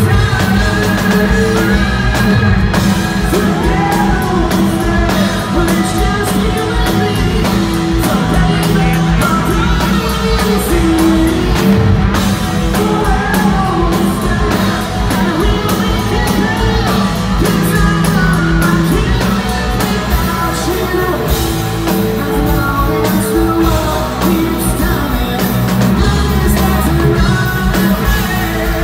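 Live rock band playing: a male lead singer over electric guitar, bass guitar and drums, loud and continuous.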